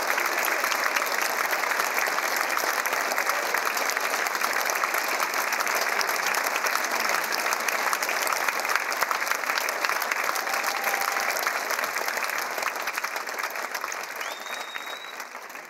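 A theatre audience applauding, a steady dense clapping that fades away over the last few seconds.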